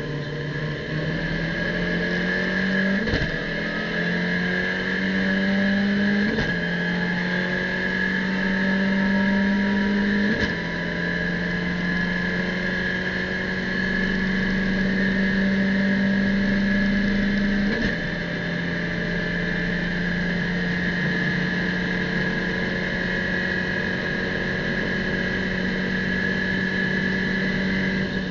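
Abarth race car's engine heard from inside the cockpit under full acceleration. Its pitch climbs slowly, then drops at each of four quick upshifts, about 3, 6, 10 and 18 seconds in, going from second gear up to sixth. A steady high whine runs alongside.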